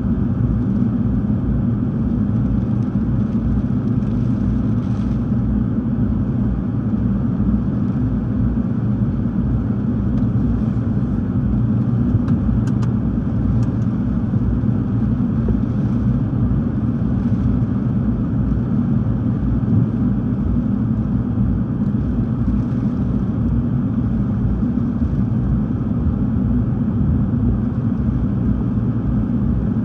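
Hurricane Ian's wind blowing steadily, buffeting the microphone with a deep, unbroken rumble.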